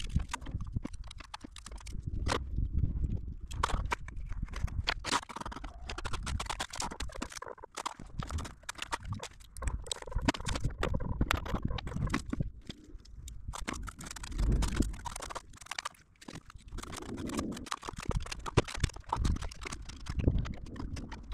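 Irregular clicks, taps and scrapes of hand tools: a trowel and bucket handled while cement adhesive is spread onto Styrofoam insulation boards. Low rumble of wind on the microphone underneath.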